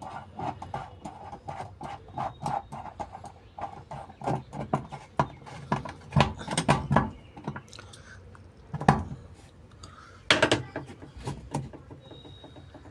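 Hard plastic parts of a washing machine being handled and fitted back together: a quick run of clicks and taps, then a few louder separate knocks in the second half.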